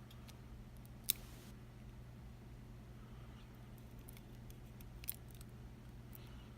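Two sharp small clicks, about four seconds apart, with a few fainter ticks, from the parts of a disassembled pin-tumbler lock (core and pins) being handled, over a steady low hum.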